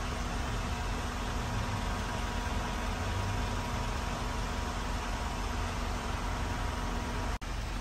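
Steady rushing of the truck cab's newly fitted Denso air-conditioning blower, with the Isuzu Elf NMR71's diesel engine idling beneath it, heard from inside the cab. The sound drops out for an instant near the end.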